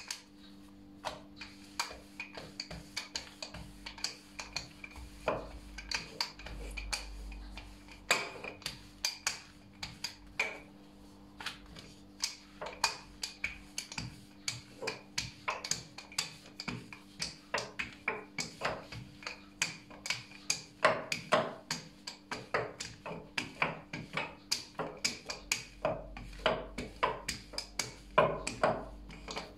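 Wooden rolling pin worked back and forth over sweet-bread dough on a floured granite countertop, rolling it into a thin sheet: a steady run of short clicks and knocks, a few a second, as the pin strikes and rolls on the stone.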